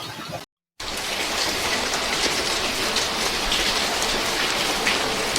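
Heavy rain pouring down in a steady hiss, starting after a short cut to silence about half a second in.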